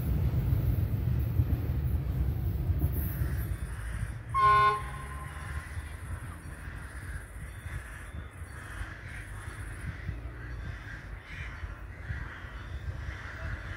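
Low rumble of a passing train for the first few seconds, then crows cawing: one loud, short caw about four and a half seconds in, followed by fainter caws over a low steady rumble.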